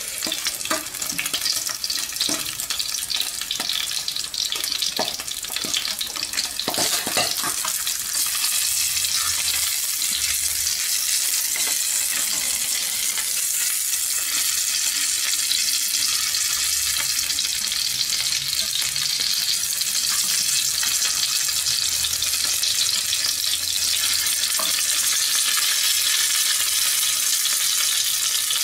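Coho salmon steak sizzling in hot oil in a frying pan as its back is fried, a steady hiss that grows louder about eight seconds in and then holds. A few light clicks come in the first seven seconds.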